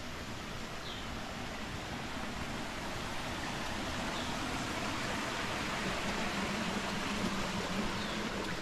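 Steady rushing of a river flowing over rocks, growing slightly louder, with a few faint bird chirps and a low steady hum from about halfway on.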